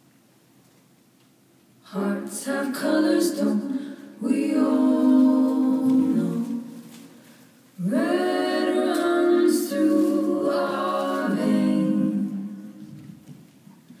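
A cappella vocal music: several voices singing together without instruments. It comes in about two seconds in, breaks off briefly around six seconds, then comes back and fades near the end.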